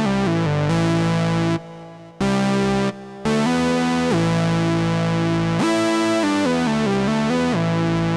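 AJH Synth MiniMod Eurorack modular synthesizer playing a line of sustained notes that glide in pitch from one to the next. The sound drops out briefly twice, around one and a half and three seconds in.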